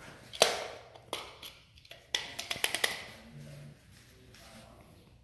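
A series of sharp clicks and taps: a loud one about half a second in, another about a second in, then a quick run of several between two and three seconds in.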